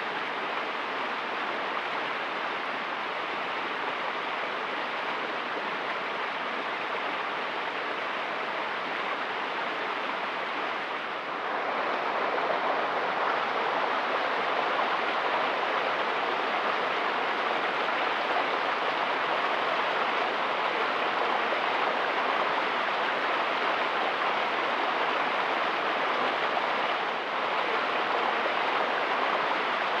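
Creek water rushing steadily over rocks, a continuous even wash that steps up louder about a third of the way in.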